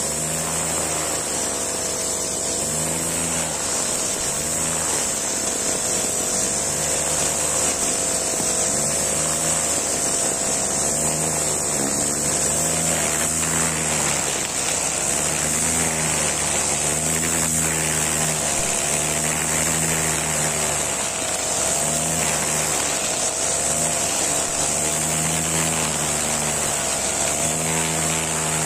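Honda four-stroke backpack brush cutter running at working speed, its nylon string line cutting grass. The engine note rises and falls over and over as the line bites into the grass and frees up again.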